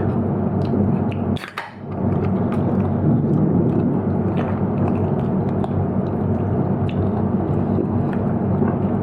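A person chewing a mouthful of food, with small clicks and one sharper knock about a second and a half in, over a steady low drone.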